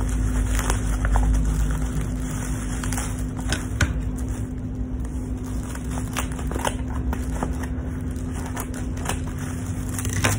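Black plastic mailer bag rustling and crinkling as it is cut and pulled open with scissors, with scattered sharp crackles, over a steady low hum.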